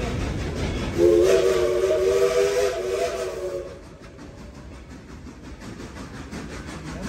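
Steam locomotive whistle blowing one long blast about a second in: a chord of several steady notes that stops after about three seconds. After it, the train's quieter steady running noise continues.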